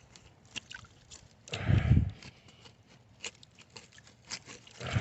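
A stick scratching and digging in creek-bed gravel around a buried bottle, with scattered small clicks and scrapes. Two louder, duller rustling bursts come about one and a half seconds in and again at the very end.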